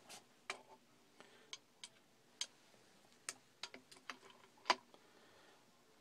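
Scattered sharp metal clicks and taps, irregularly spaced with the loudest about three-quarters of the way through, from a wrench working the leveling nuts on the telescope pier's mounting bolts.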